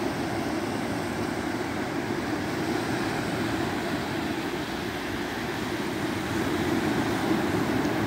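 Small sea waves breaking and washing up onto a sandy beach: a steady rushing surf that swells a little near the end.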